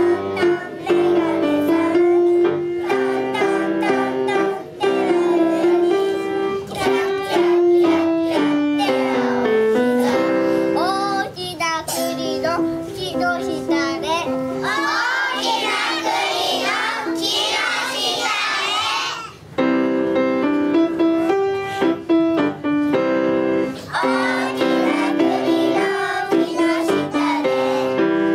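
A group of young children singing a song together over instrumental accompaniment. For a few seconds past the middle the accompaniment drops out and the children's voices carry on alone.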